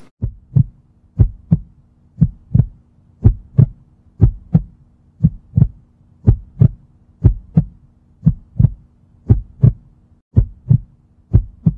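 Heartbeat sound effect: paired lub-dub thumps, about one beat a second, over a faint steady hum.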